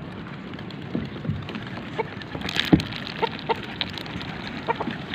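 Homing pigeons pecking at scattered corn: irregular light taps and clicks, a few at a time, over a steady hiss.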